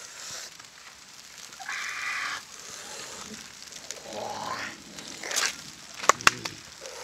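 Banana leaves being handled: rustling and crinkling in short bursts, with two or three sharp clicks about six seconds in.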